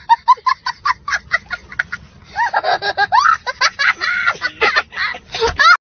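A young child laughing hard: a quick run of short, shrill cackles, about five a second, then longer high-pitched squeals that rise and fall in pitch.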